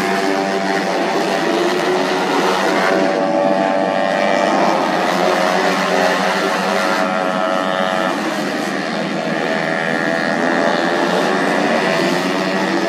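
Tuned 130 cc automatic racing scooters running at high revs, several engine notes overlapping and rising and falling as the machines pass.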